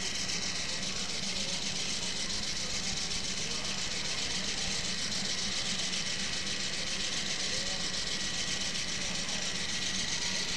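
Steady mechanical drone, like an idling engine, with indistinct voices murmuring underneath.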